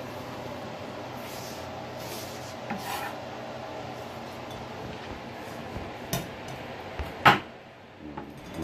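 Knife cutting cooked chicken breast on a wooden cutting board: soft rubbing, sawing strokes, a few clicks, and one sharp knock of the blade on the board about seven seconds in.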